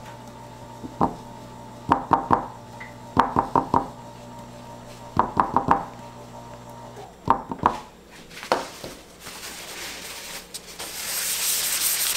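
Groups of light taps and clicks from silicone spatulas being knocked and scraped clean over a glass beaker of liquid soap. Near the end a cloth rubs across the tabletop.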